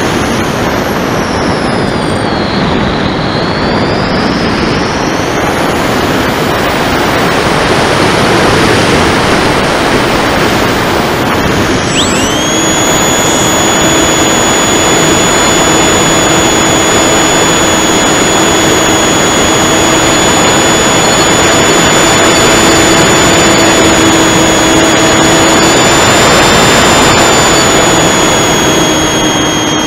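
Air rushing past an RC flying wing gliding with its motor off and the pusher propeller windmilling. About twelve seconds in, the 2217 1300kv brushless motor spins the 9x6 prop up sharply and holds a steady high whine over the wind.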